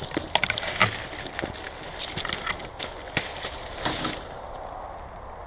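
Dry twigs and branches snapping and scraping as someone pushes through dense undergrowth: a quick, irregular run of crackles and snaps, loudest in the first second, that stops about four seconds in.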